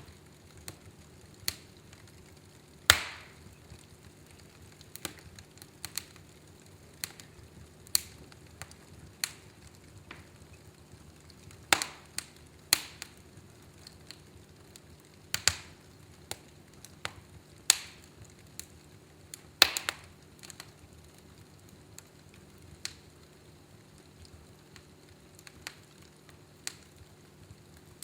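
Wood fire burning in a fireplace, crackling with irregular sharp pops and a few louder snaps scattered throughout.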